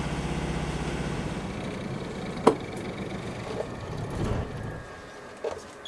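Yanmar 40 hp marine diesel engine running at about 2,000 rpm, then winding down and stopping over a few seconds as it is shut off at the helm panel. A sharp click comes about two and a half seconds in.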